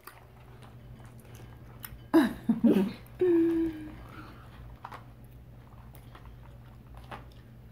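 A child chewing a soft gummy candy, with a short giggle about two seconds in and a held 'mm' hum just after.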